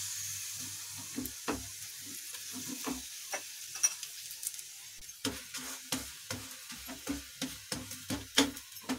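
Oiled methi thepla sizzling on a hot tava, a steady hiss that fades a little. From about five seconds in, a spatula presses and pats it against the griddle, giving many quick clicks and scrapes.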